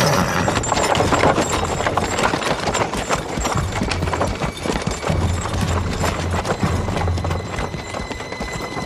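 Horses' hooves clopping, many quick irregular hoofbeats as horses are ridden off, with a low music score underneath.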